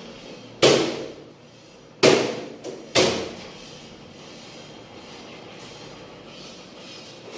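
Three sharp bangs, the second and third about a second apart, each dying away quickly, then a steady low hiss.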